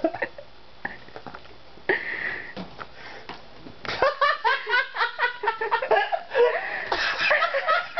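A person laughing hard in quick, repeated cackling bursts, starting about halfway through. Before that, only a few faint clicks and rustles.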